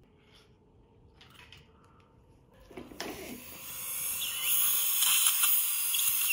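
A few faint instrument clicks, then from about three seconds in a dental surgical suction aspirator hissing in the patient's mouth, a loud, high, even hiss that builds for a second or two and holds.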